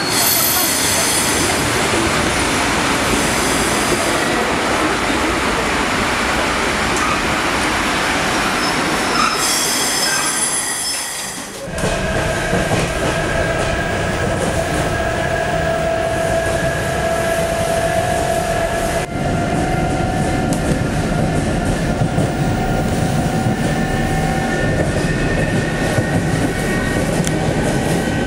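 EP2D electric multiple unit moving along the station platform, with wheel-and-rail noise and high squealing tones. About twelve seconds in the sound changes to the inside of the carriage under way: a steady rumble of wheels on track with held whining tones.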